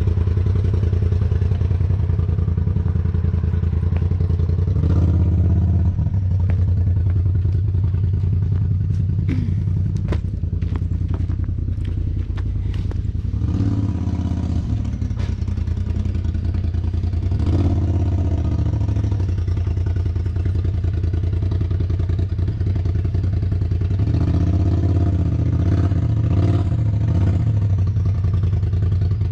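Polaris RZR Turbo four-seater's engine idling steadily, swelling briefly in a few short revs. A run of sharp clicks and clatter comes near the middle.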